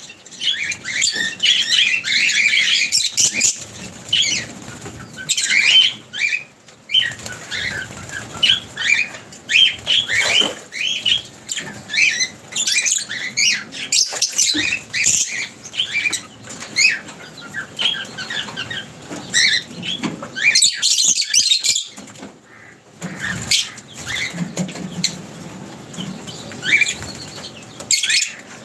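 A crowd of birds at a feeding spot: many short, overlapping chirps and calls, busy and continuous, mixed with the flutter of wings.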